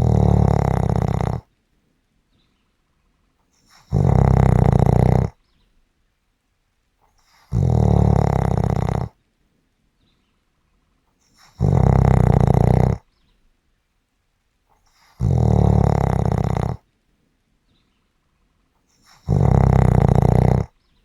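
Snoring in a steady rhythm: six loud snores, one about every four seconds, each lasting about a second and a half, with quiet breaths between.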